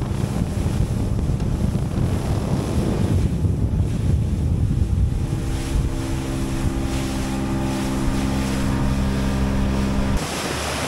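Motorboat running at speed over calm water: steady engine drone, hull and wake rushing, and wind buffeting the microphone. The engine's steady tone comes through more clearly from about halfway, and the sound changes abruptly shortly before the end.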